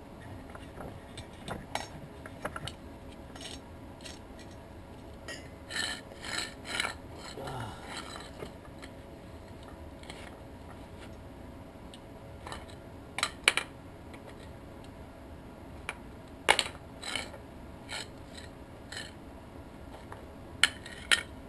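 Scattered clinks, knocks and scrapes of steel tubing and welding gear being handled and positioned, with a few short, sharper clatters about six seconds in, around thirteen seconds and near the end.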